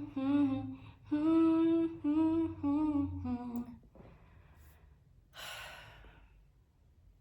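A woman humming a tune in held, gently bending notes for about three and a half seconds, then one breathy sigh a couple of seconds later.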